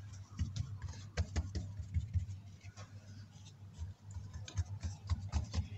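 Hands patting and pressing a sheet of bread dough into a plastic tray: soft, irregular taps and light thumps over a low steady hum.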